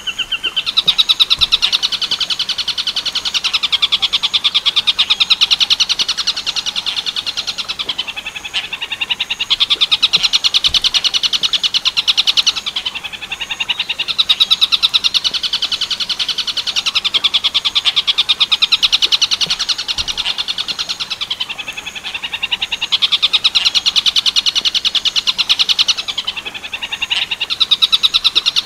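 Tengkek buto kingfisher calling: a loud, very rapid rattling run of high notes, repeated in long bouts of several seconds with short breaks between them.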